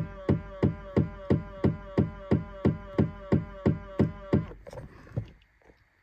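2000 Ford Explorer's power side mirrors making a rhythmic mechanical clicking, about three clicks a second, each with a short ringing tone. The clicking stops about four and a half seconds in, and a few faint ticks follow.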